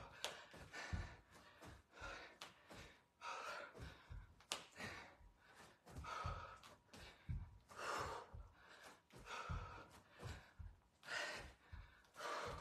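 A woman breathing hard, huffing out about every second and a half, over dull thumps of her feet landing on carpet during jumping lunges.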